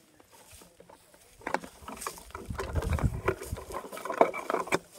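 Increment borer being twisted by hand into a tree trunk: irregular clicks from the borer working through the wood, starting about a second and a half in, with a brief low rumble near the middle.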